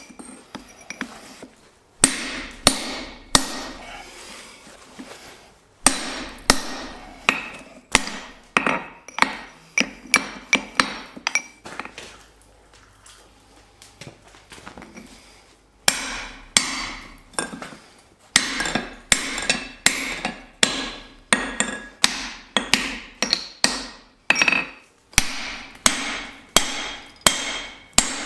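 Hand hammer striking hot steel on an anvil in runs of blows, roughly two a second, each blow followed by a short metallic ring. There is a pause of a few seconds about halfway through.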